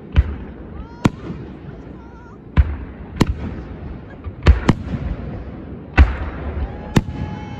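Aerial fireworks shells bursting, about eight sharp bangs at irregular intervals, two of them in quick succession in the middle.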